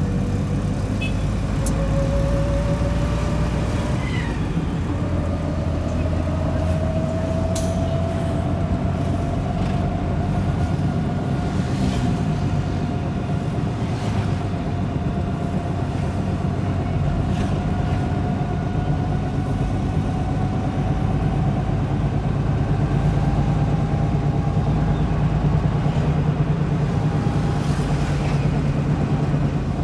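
Engine and road noise heard inside a car's cabin while driving in traffic, a steady rumble with a thin whine that rises slowly in pitch as the car gathers speed out of a traffic jam. A few brief clicks are heard along the way.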